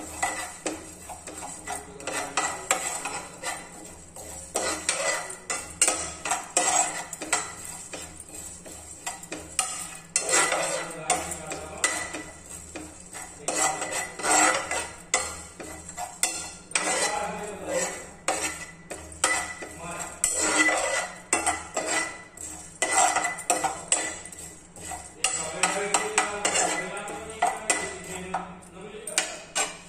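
A metal spoon scraping and clinking against a non-stick frying pan in irregular strokes, stirring fenugreek and cumin seeds as they dry-roast.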